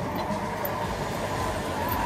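Tracked hydraulic excavator running steadily: a low engine rumble with a steady high whine over it.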